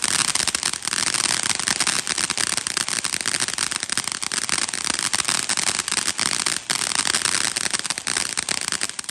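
A string of firecrackers going off: a rapid, continuous rattle of sharp pops with no break between them.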